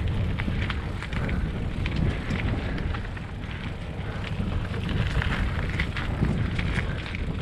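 Wind buffeting the microphone: a steady low rumble with many light crackles and clicks scattered through it.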